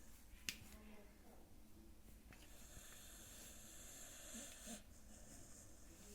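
Sleeping dog snoring faintly, with a sharp click about half a second in.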